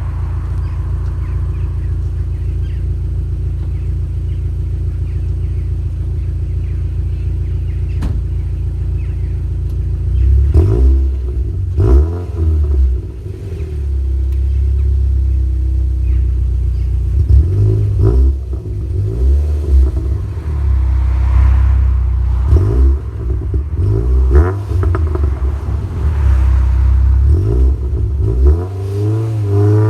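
NC Mazda MX-5's four-cylinder engine breathing through a BBR manifold with no cat and a Cobra race back box, idling steadily and loudly for about ten seconds, with a single sharp click about eight seconds in. Then the car pulls away, the exhaust note rising and falling repeatedly as it accelerates and changes gear.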